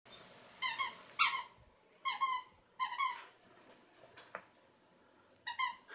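Plush squeaky frog dog toy squeaking as a puppy bites down on it: four short squeaks in the first three seconds, then a pause and one more near the end.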